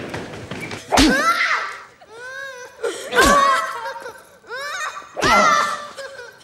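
Flogging: three lashes about two seconds apart, each followed at once by a boy's loud cry of pain, with softer whimpering cries between the strokes.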